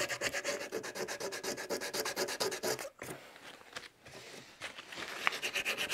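120-grit sandpaper rubbed by hand over a carved wood surface in rapid short strokes, working sanding dust into wet super glue to fill a crack. The strokes stop about three seconds in and start again near the end.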